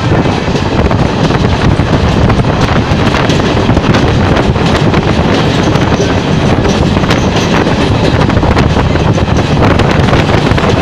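Passenger train running steadily along the line, heard from the side of the carriage: a continuous rumble of wheels on rails with fine clatter, and wind buffeting the microphone.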